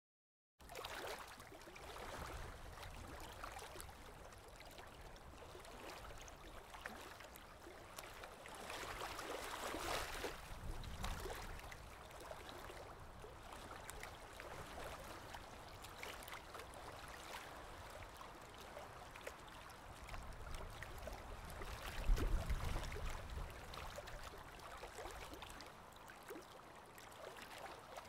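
Faint rustling handling noise with scattered light clicks, and a soft low thump about three quarters of the way through.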